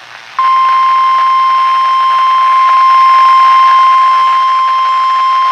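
NOAA Weather Radio 1050 Hz warning alarm tone played through a weather radio's speaker, announcing a Winter Storm Warning. It cuts in sharply about half a second in and holds as one loud, unbroken steady tone. It sounds again right after the warning message, which the owner calls an irregular sounding of the alert.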